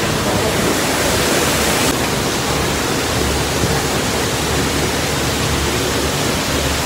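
Steady rushing of flowing hot-spring water beside a steaming pool.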